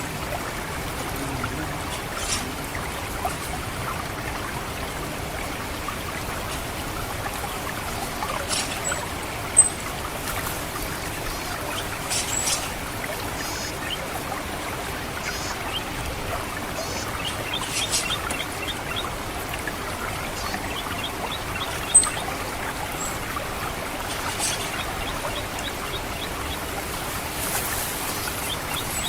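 Water trickling steadily through a rice paddy. Over it, an orange-headed thrush gives short, sharp, high 'ngecit' call notes a few times; the loudest come about ten seconds in and again past the twenty-second mark. Fainter chirps and fast ticking runs are also heard.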